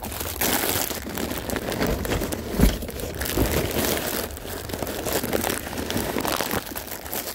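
Continuous rustling, crinkling handling noise full of small clicks, with one heavier low thump about two and a half seconds in.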